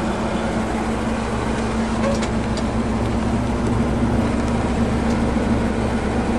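1979 Dodge Adventurer pickup's 318 V8 idling steadily, heard from inside the cab as an even low hum.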